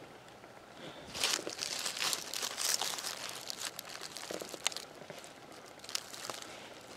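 Dry fallen leaves and dead plant stems rustling and crackling as a hand pushes through leaf litter. The rustling comes in an irregular run from about one to three and a half seconds in, followed by fainter scattered snaps.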